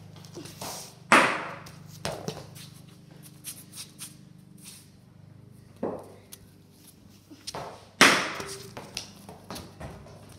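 Cricket ball impacts echoing in a concrete-floored garage: two loud cracks, about a second in and about eight seconds in, each ringing on in the room, with a few lighter knocks and taps between them.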